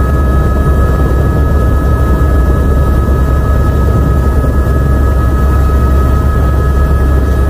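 Tour helicopter running on the helipad with its main rotor turning: loud, steady engine and rotor noise with a constant high whine over it.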